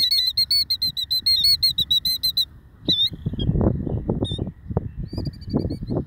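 Killdeer calling in alarm at their nest: a fast trill of repeated high notes for about two and a half seconds, then single calls and a shorter, fainter trill near the end. Low rustling noise comes in about halfway.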